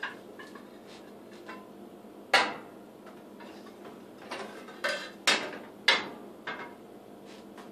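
Hard decor items knocked and set down on a glass tabletop, sharp clinks with a short ring. One loud knock comes about two seconds in, then a cluster of about five more in the second half.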